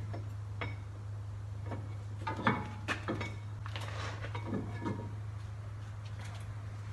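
Light metal clinks and knocks as a brake caliper is fitted back over the rotor and pads, with a steady low hum underneath.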